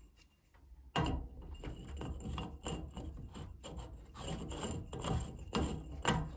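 Hands handling a threaded black iron pipe nipple close to the microphone: irregular rubbing and scraping scuffs that start abruptly about a second in.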